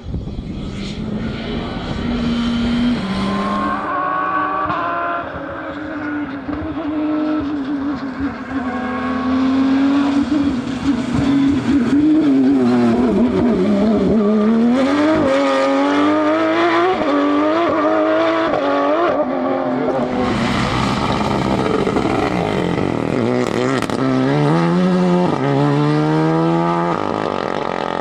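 Rally car engines at full stage pace, revving up and down through gear changes and lifts off the throttle, with a few short cracks. The sound changes abruptly a couple of times as different cars pass.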